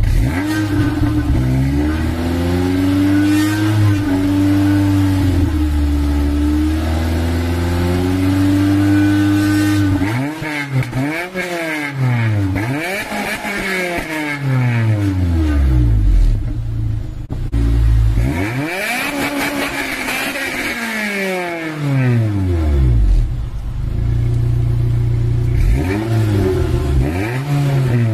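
Honda Accord Euro R (CL7) 2.0-litre K20A four-cylinder engine heard through a Mugen titanium sport exhaust and sport-catalyst manifold. It runs steadily for about ten seconds, then is free-revved in repeated throttle blips, the pitch climbing and falling each time, with a short steady spell before a last couple of blips near the end.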